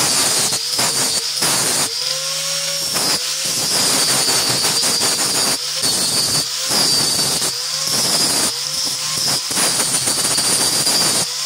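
Handheld angle grinder shaping a wooden knife handle: a steady high motor whine with repeated rasping passes as the disc bears on the wood, its pitch picking up again in the short gaps between passes.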